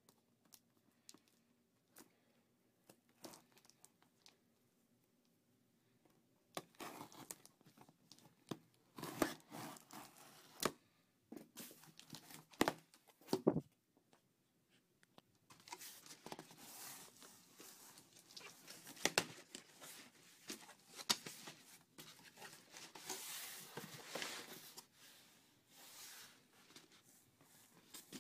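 An appliance box being opened by hand, with its packing tearing and crinkling. A few faint clicks come first. From about six seconds in come bursts of tearing with sharp knocks, and in the second half longer stretches of tearing and rustling.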